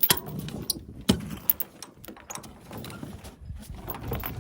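Chain binder being pulled tight on a tie-down chain: sharp metal clanks and clinks of the chain links, with the strongest knocks at the very start and about a second in.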